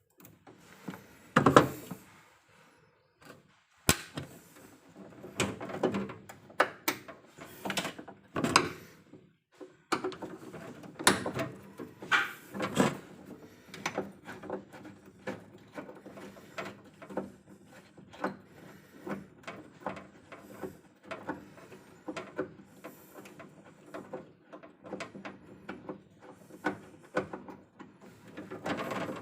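Irregular knocks, clicks and clatter from tools and metal hardware being handled during work on an electrical distribution panel. A few sharper knocks stand out among many lighter clicks.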